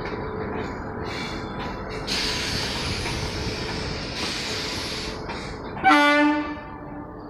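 Indian Railways express train running with a steady rumble of wheels and carriages, with a stretch of brighter hiss from about two to four seconds in. Near the end a locomotive horn sounds one short, loud blast, which fades off over about a second.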